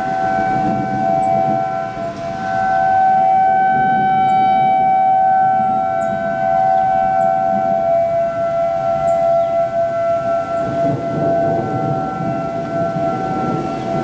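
Outdoor civil defense sirens sounding a tornado warning: a steady alert tone of two close pitches held together, its loudness swelling and dipping as the sirens sweep round.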